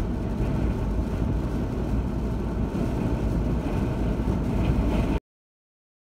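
Car driving on a rain-wet highway, heard from inside the cabin: a steady low rumble of tyres and wind that cuts off suddenly about five seconds in.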